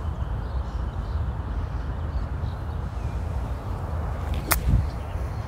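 Golf club striking a ball on a chip-pitch shot: one sharp click about four and a half seconds in, with a short dull thud right after it. The ball is struck cleanly from the centre of the clubface. A steady low rumble runs underneath.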